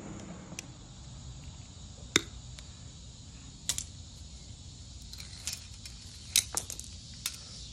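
Scattered light clicks and clinks of chandelier wires and small brass fittings being twisted apart and handled, with the sharpest click about two seconds in.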